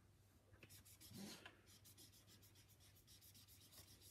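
Felt-tip marker rubbing on paper in quick, rhythmic back-and-forth colouring strokes, faint.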